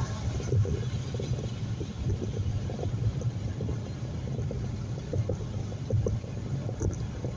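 Car interior road noise while driving: a steady low rumble from tyres and engine heard inside the cabin, with small irregular knocks throughout.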